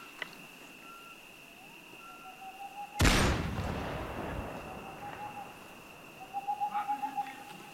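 A single loud rifle shot about three seconds in, with a long echoing tail, dubbed in as a sniper rifle firing. Underneath it is night ambience: a steady high-pitched drone and several drawn-out hoots.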